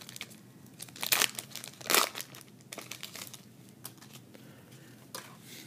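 Trading-card booster pack wrapper crinkling and tearing as it is opened by hand, in irregular crackles with two louder rips about one and two seconds in.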